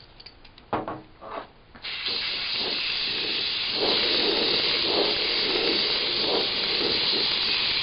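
A can of CA glue accelerator (kicker) sprays in one long, steady hiss that starts about two seconds in, after a few light handling knocks.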